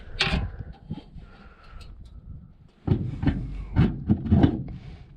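A sharp knock or scrape, then, from just over halfway through, a run of knocks and thumps about every half second.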